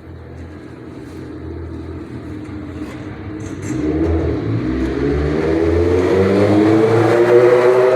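Chain-drive garage door opener running, its motor hum rising in pitch and getting louder from about halfway in.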